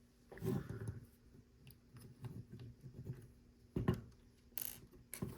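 Plastic LEGO pieces being handled and pressed together: scattered sharp clicks and short rustles, with one distinct snap about four seconds in.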